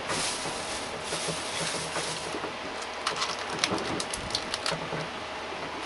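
Plastic packaging being handled and crinkling, with a run of short crackles and clicks about three seconds in, over a steady hiss.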